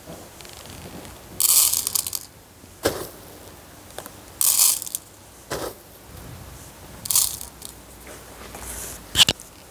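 Urea granules handled from a plastic bag and dropped into the plastic tray of a pocket digital scale: short bursts of bag crinkling and granules rattling into the tray, with a few sharp clicks.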